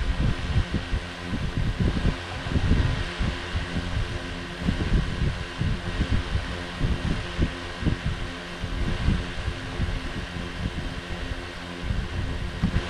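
DJI Mavic Air 2 quadcopter spinning its stock DJI propellers while sitting on the ground: a steady whine of several tones from the four motors and props over an uneven low rumble.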